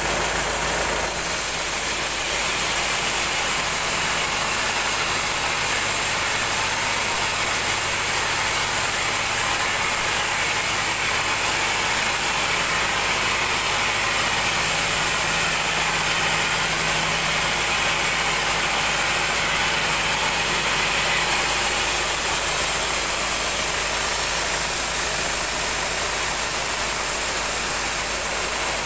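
Vertical band sawmill running steadily, its blade ripping lengthwise through a large mahogany log to cut off a board.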